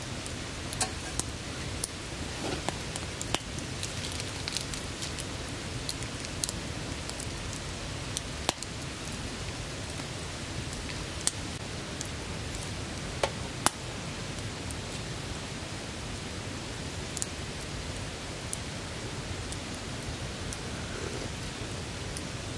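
Wood campfire burning in a steel fire pit: a steady hiss with scattered sharp pops and crackles, the loudest a little past 8 seconds and near 14 seconds in.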